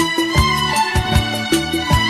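Instrumental break in the karaoke backing track of a Hindi film song, with a steady drum beat under sustained melody and no singing.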